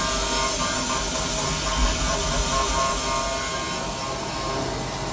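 High-speed spindle of a RAIS VMC350 five-axis machining center running with a steady whine while a small engraving tool cuts a spiral pattern into a metal glass mould, under a continuous hiss. The sound eases slightly about three seconds in.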